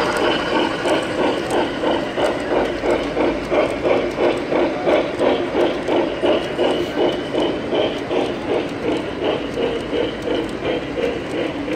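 O scale model trains running along the layout, giving a steady rhythmic clatter of about three to four beats a second.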